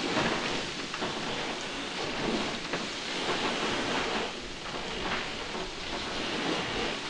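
Spray and rushing water washing across the deck of a Volvo Ocean 65 racing yacht driving hard through rough sea in strong wind: a steady hiss that swells and eases a little.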